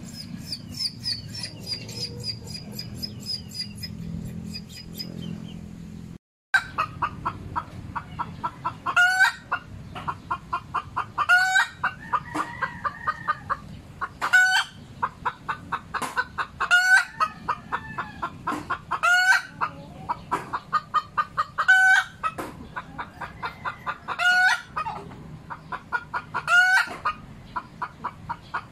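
Native hen cackling: a run of quick clucks broken every two to three seconds by a loud, drawn-out squawk, the pattern of a hen's laying cackle. Before it, for about the first six seconds, a high, rapid chirping.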